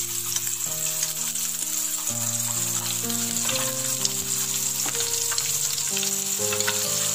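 Hot oil sizzling as masala-coated pieces of boiled egg deep-fry: a steady hiss with small pops. Background music of held notes runs underneath.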